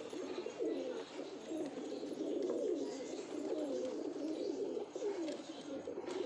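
A flock of domestic pigeons cooing together: many low, warbling coos overlapping with no break.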